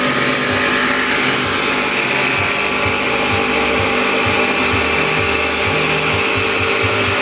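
Steady, loud machine-like whirring noise with a constant hum, unchanged throughout.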